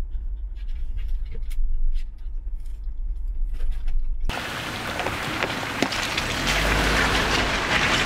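An SUV rolling slowly down a dirt trail, heard as a steady low rumble from inside the cab. About four seconds in it cuts suddenly to a loud hiss and crackle of tyres rolling over gravel and dirt, heard close to the wheel.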